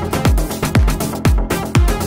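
Electronic dance beat playing back in a Studio One production session, with a steady kick drum about two beats a second, each kick falling sharply in pitch, over a Lead Architect synth bass.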